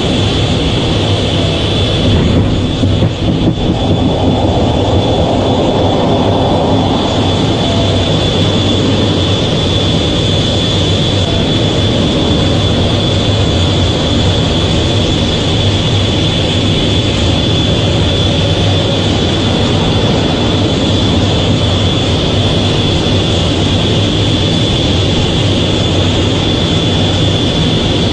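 Fighter jet engine noise: a loud, steady rumble with a high whine held throughout, briefly dipping about two to three seconds in.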